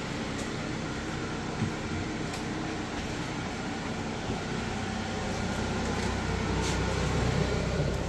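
A fan running steadily: a rushing noise over a low hum, with a few faint clicks, growing a little louder near the end.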